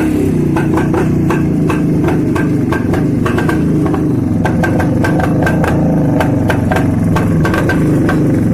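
Rajdoot 175 two-stroke single-cylinder motorcycle engine just after starting, its revs easing down in the first second and then idling steadily with a fast, irregular ticking. The engine is the original factory-assembled one, never opened or repaired.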